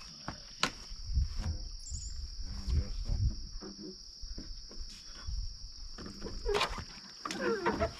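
Steady high-pitched insect chorus, with scattered light knocks and scrapes from large insulated wall panels being handled and set onto the floor rails.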